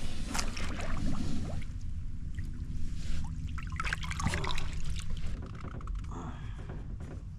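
Water splashing and trickling around a small boat on a river, over a steady low hum.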